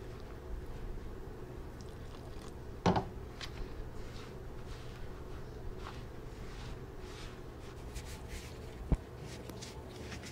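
A hand mixing wet flour into a dough in a plastic bowl: soft squishing and scraping, over a steady low hum. Two brief knocks, about three seconds in and near the end.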